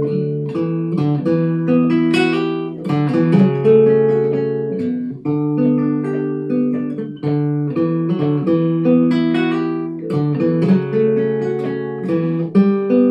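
Nylon-string classical guitar with a capo playing an instrumental passage of plucked chords and melody notes, with a few strummed chords.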